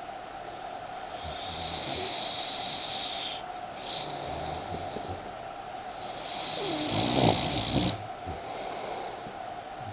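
A boxer dog snoring in its sleep: three long snoring breaths, the last and loudest about seven seconds in.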